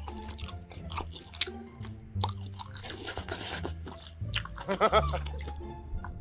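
Close-up mouth sounds of eating cheesy tteokbokki: slurping, chewing and wet clicks and smacks, over background music.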